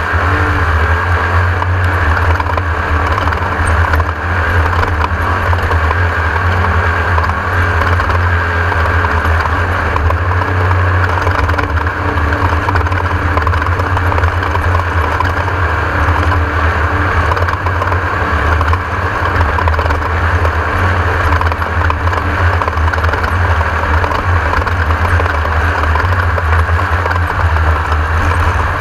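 Class 1600 off-road race car's air-cooled Volkswagen flat-four engine running steady and hard at speed, with a dense wash of drivetrain and terrain noise over it.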